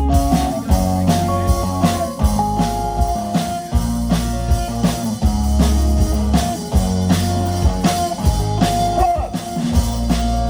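Rock band playing: guitar lines over a heavy bass and a drum kit keeping a steady beat.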